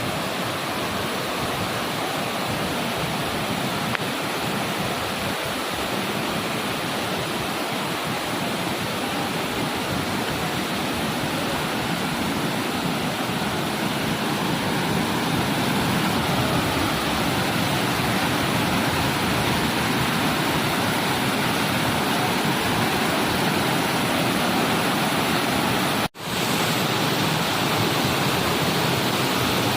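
Waterfall rushing steadily, a dense, even roar of falling water. It grows slightly louder about halfway through and cuts out for an instant near the end.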